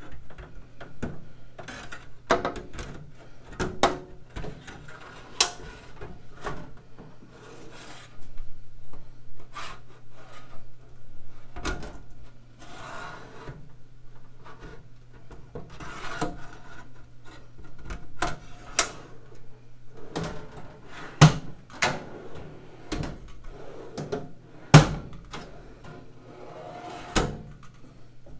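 Steel tool-cart drawers sliding in and out on their metal slides: rubbing slide noise broken by repeated clicks and clunks, the loudest two about 21 and 25 seconds in. The clicks are the slide latches, and a click is the sign that a drawer is seated in its slides. A steady low hum runs underneath.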